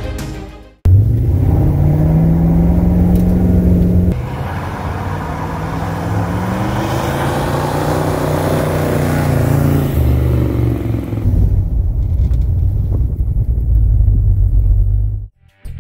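1972 Chevelle Malibu engine in three cut-together shots: revving up and holding, then the car driving past, its pitch rising and falling, then running steadily as heard from inside the cabin while driving.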